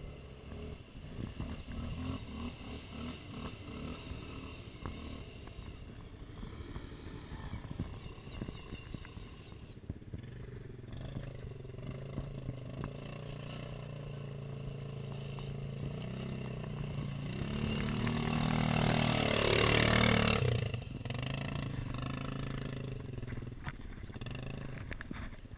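ATV engines running as the quads wade through a muddy pond. About three quarters of the way in one engine revs up and grows much louder with a rushing noise, then the sound drops suddenly.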